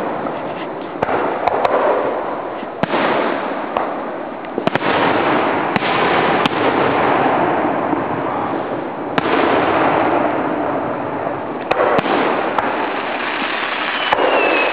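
Aerial fireworks display: shells bursting with sharp bangs every second or so over a dense, continuous crackling wash.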